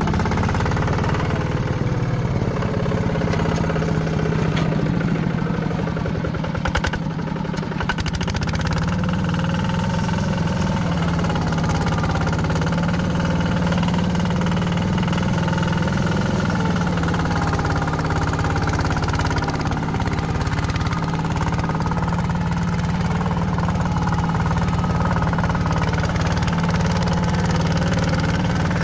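Heavy diesel engine of earth-moving machinery running steadily, with a brief clatter about seven seconds in.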